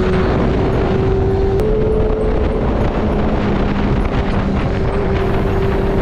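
Motorcycle engine running at a steady cruise, its note holding nearly constant, under heavy wind buffeting on an unshielded action-camera microphone.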